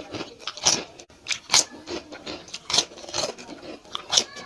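Close-miked eating sounds: chewing and wet mouth smacks, irregular sharp clicks several times a second.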